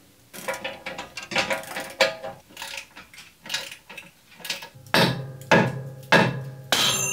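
A ratchet wrench clicking in short runs as it tightens a bolt, then about four hard hammer blows on a drilled steel brake disc, the disc ringing after each. The blows are meant to break the disc free of a hub it has rusted onto.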